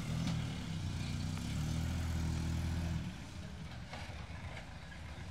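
A motor vehicle's engine running close by with a steady low hum for about three seconds, then dropping away quickly.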